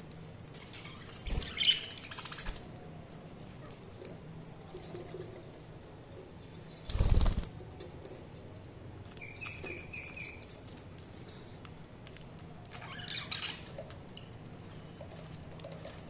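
Caged budgerigars: a short chirp about two seconds in, a burst of wing flapping about seven seconds in, then a quick run of four or five short chirps and more chirping near the end.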